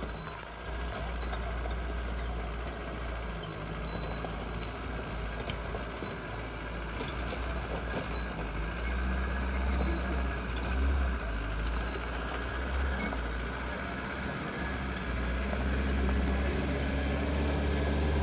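An old four-wheel-drive jeep's engine running as the loaded vehicle drives slowly over a rough dirt track, growing louder as it comes closer.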